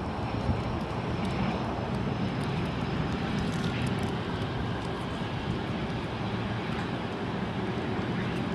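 Cessna Citation CJ1's twin Williams FJ44 turbofans running at low power during the landing rollout: a steady rushing jet noise with a faint high whine.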